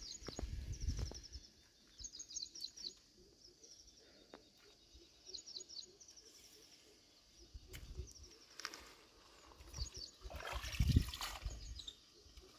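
Small birds calling in short, rapid runs of high chirps every few seconds. Low handling knocks and scuffs come from a fish being worked off a hook on a gravel bank. A louder scuffle comes near the end.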